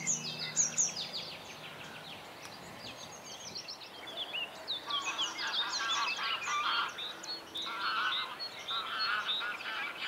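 Songbirds singing: a busy run of short, quick, high chirps and trills throughout, with lower, rapid warbling phrases joining from about halfway in.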